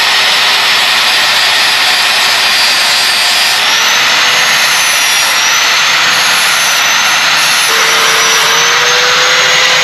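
Angle grinder grinding down a raised hump in the Jeep JKU's rear body around the tail-light opening: a loud, steady grinding whine. Its pitch steps up slightly about three and a half seconds in, then dips and climbs back near eight seconds.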